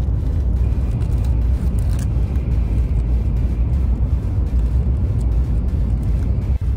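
Steady low rumble of a moving vehicle, with a faint thin high tone in the first few seconds.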